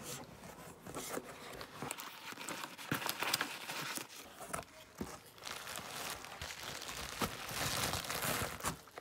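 Packaging crinkling and rustling as a cardboard parcel is unpacked: the box is handled and tipped, and white plastic packing and a bubble-wrapped item are pulled out. The crackling comes in quick bursts throughout and is densest near the end, as the bubble wrap is handled.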